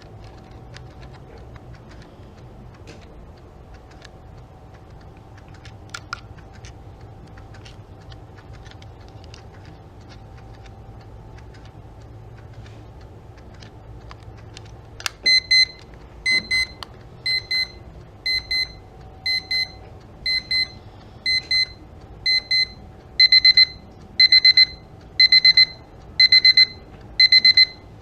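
Mini travel analog alarm clock's electronic beeper going off about fifteen seconds in, beeping high-pitched about once a second. At about twenty-three seconds it steps up to its next volume stage, and the beeps become longer and much louder. Before the alarm there are only faint ticks.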